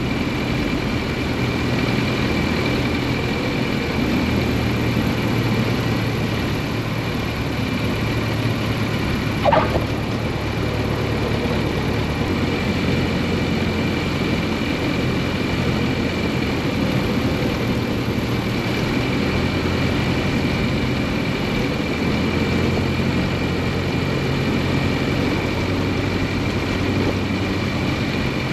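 Steady drone of a light aircraft's engine and propeller heard from inside the cockpit of an Aeronca Champ in flight. A brief rising chirp sounds about nine and a half seconds in.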